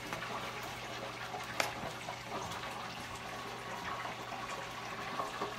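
Food frying in hot oil: a steady sizzle, with a single sharp click about a second and a half in.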